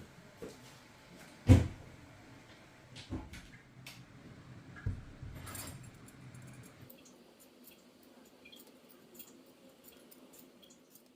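Kitchen handling sounds: a few knocks and clatters of things set down on a work surface, the loudest about one and a half seconds in, then only faint light clicks.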